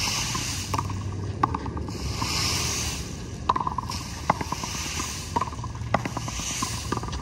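Frontón handball rally: the hard ball smacks off bare hands and the concrete wall in sharp, slightly echoing cracks about once a second, over a hiss that swells and fades every couple of seconds.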